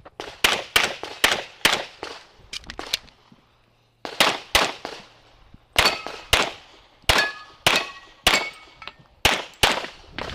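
Pistol shots fired in rapid pairs and strings from a Metrillo 'The Master' competition pistol, about fifteen in all, with a brief quiet break about three and a half seconds in. Steel targets ring with a clang from hits between about seven and eight and a half seconds in.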